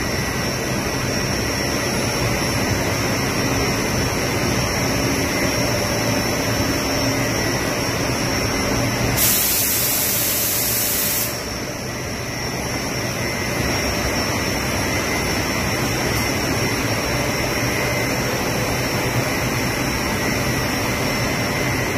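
Mono-layer blown film extrusion line running: a steady machine and blower noise with a few thin, steady high whines. A loud hiss rises over it about nine seconds in and lasts about two seconds.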